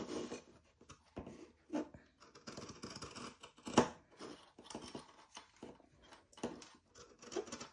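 Dressmaking scissors cutting through folded fabric in a run of irregular snips with fabric rustling between them; the loudest snip comes a little before four seconds in.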